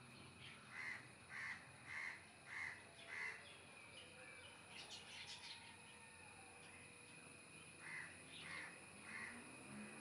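Faint bird calls: a run of five evenly spaced calls, then a few brief higher chirps, then three more calls near the end.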